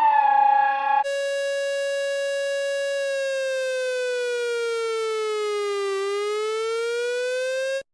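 Electronic emergency-alert siren tone. A single pitched note holds steady for about two seconds, slides slowly down in pitch and back up again, then cuts off suddenly. It is preceded about a second in by the end of an earlier alarm tone falling in pitch.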